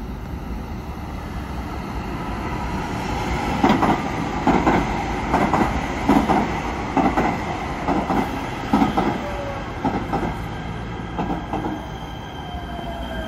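LA Metro P3010 light rail train pulling into a station. Its wheels clack over the track in pairs of strikes that come further apart as the train slows, and a falling tone is heard near the end as it comes to a stop.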